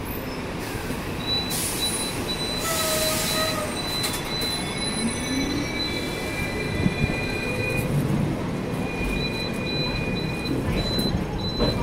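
Hong Kong double-deck tram's steel wheels squealing on the rails as the car runs round a curve, several high thin tones coming and going over the rumble of the moving tram, with a brief hiss about two to three seconds in.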